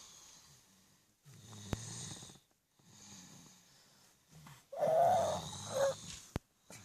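Snoring in sleep: slow breaths with a low rasping rumble, about three in a row, then a louder, higher-pitched snore about five seconds in. Two short sharp clicks.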